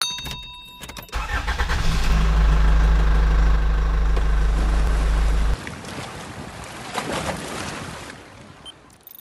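A loud, deep, steady rumble that starts about a second in and cuts off suddenly about five and a half seconds in, followed by a fainter hiss with a brief whoosh near seven seconds.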